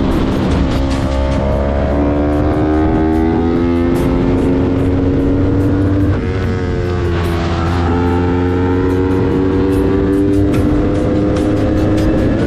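Yamaha YZF-R3's parallel-twin engine accelerating hard: its pitch climbs steadily, drops at an upshift about six seconds in, then climbs again to another shift at the end.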